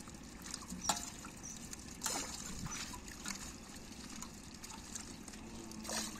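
Shallow water splashing and trickling around hands picking fish out of a net into plastic baskets, with a few short, sharper splashes. Near the end a basket is lifted out of the water.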